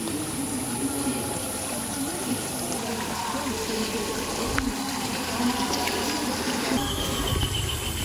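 Water running steadily through small irrigation channels and fish ponds, an even rushing and trickling.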